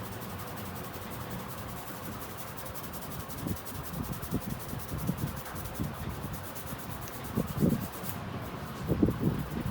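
Hands working a head massage: soft, muffled rubbing and patting thumps over a steady background hiss. They come irregularly, begin a few seconds in and grow more frequent and louder towards the end.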